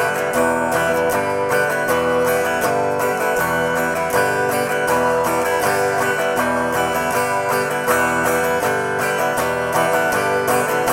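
Guitar strummed at a quick, steady pace, changing back and forth between E minor and G chords in the open-up strum, a down-down-open pattern that briefly lifts the fretting hand between chords.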